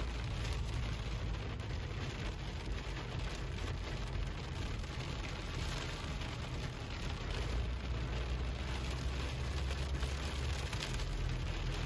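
Heavy rain falling on a car's windscreen and roof, heard from inside the moving car, over the steady low rumble of the car driving on a wet road.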